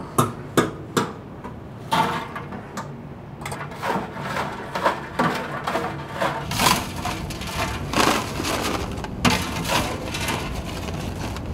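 Steel fry basket clanking against the deep fryer as it is lifted out, several sharp knocks in the first second. Then the rattling scrape of freshly fried potato fries being scooped with a metal scoop from a steel holding bin into a paper tray.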